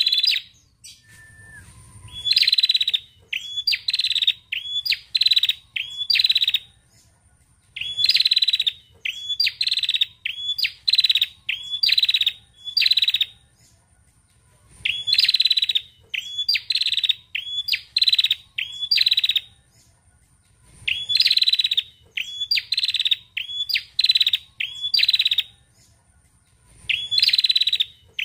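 Female tailorbird (prenjak) calling: loud, sharp, buzzy notes repeated about two a second in runs of six to eight, with pauses of a second or two between runs.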